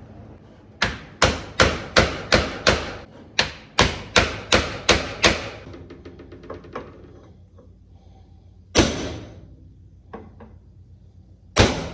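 Hammer blows in a quick run of about a dozen strikes, two or three a second, then a few lighter taps and two single hard blows near the end: a replacement bearing being driven into place on a New Holland RB560 round baler.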